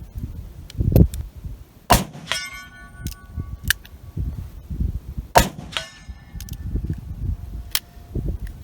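Two shots from a Taurus .44 Magnum revolver, about three and a half seconds apart. Each is followed a split second later by the long metallic ring of the bullet striking a 3/8-inch AR500 steel plate at about 80 yards.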